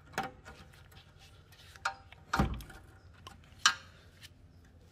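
Flathead screwdriver clicking and knocking against the metal radiator support as it is pried and wiggled down to seat it: a handful of sharp metallic clicks, with a heavier knock and thud about halfway through.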